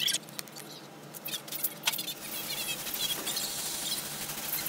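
Sandpaper disc held in the hand and rubbed over a red-primed metal panel, flattening back the primer: a steady scratchy rasp that starts about two seconds in, just after a single click.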